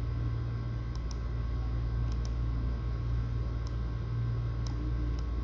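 A steady low electrical hum with about seven light, sharp clicks at uneven intervals, some in quick pairs, typical of taps or clicks while working an editing app.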